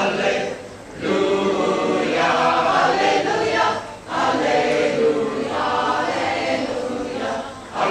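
Large mixed choir of men's and women's voices singing unaccompanied in harmony, in long phrases with brief breaks for breath about a second in, about four seconds in and near the end.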